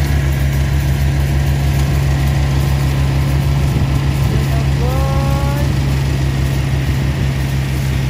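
Yanmar CA300S rice combine harvester's diesel engine running steadily under load as it cuts and threshes rice, a constant low drone with a fast even pulse.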